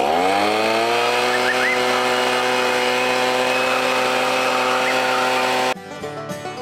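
Handheld leaf blower spinning up over the first moment, then running steadily at full speed with a rushing blast of air and a steady whine. It cuts off abruptly near the end, and bluegrass fiddle and banjo music starts.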